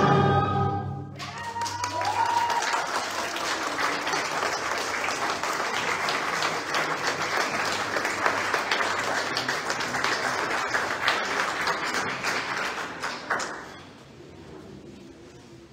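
A string orchestra and choir's final chord cuts off about a second in, followed by steady audience applause that dies away near the end.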